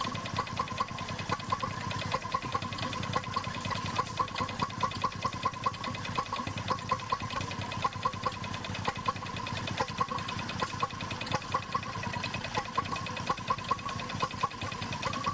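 Vintage Petters hopper-cooled stationary engine running steadily, with a regular beat of firing strokes.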